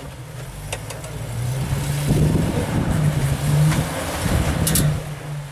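Rock crawler buggy's engine revving under load as it climbs over boulders, getting louder about two seconds in and holding high before easing off near the end.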